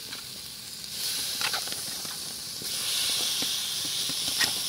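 Wet raw chicken pieces dropped into a kadai of hot fried masala, sizzling. The sizzle starts about a second in and grows louder near the middle as more pieces go in, with a few light knocks.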